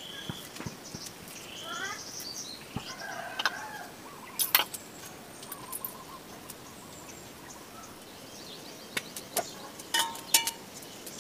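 Birds chirping in short calls in the first few seconds, with several sharp clicks or taps, the loudest around the middle and again near the end.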